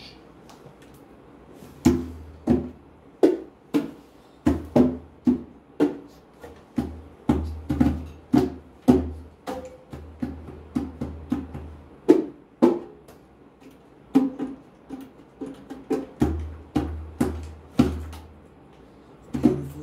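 Congas played by hand: sharp strikes that each ring briefly at the drum's pitch, a few strokes a second in an uneven rhythm. A low droning note comes and goes underneath.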